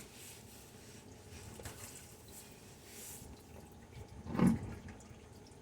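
Engine oil pouring from the open drain plug of a 2007 GMC Yukon into a drain pan, a steady splashing trickle. A brief thump about four and a half seconds in.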